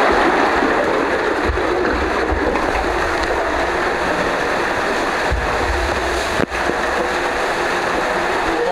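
Water rushing through an enclosed plastic tube water slide while riding down inside it: a steady hiss with occasional low rumbles, and one short sharp click about two-thirds of the way through.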